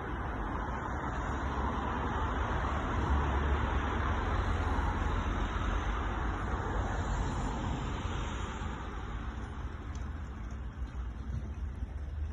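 Jet engines of an Airbus A380 flying over: a steady roar that slowly fades over the last few seconds.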